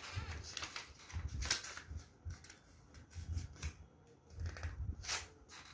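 A sheet of paper rustling and crinkling in the hands as it is folded into a triangle and creased, in several short separate bursts.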